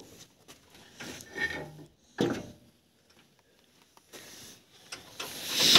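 Faint scraping, rubbing and a clunk of hand tools as work goes on inside a car's front wheel arch, with wind hissing on the microphone near the end.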